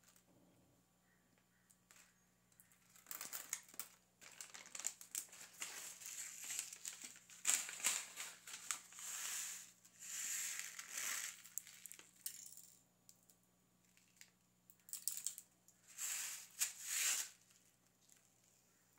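Thin clear plastic bag crinkling as it is handled, in irregular rustling bursts that start about three seconds in and stop shortly before the end.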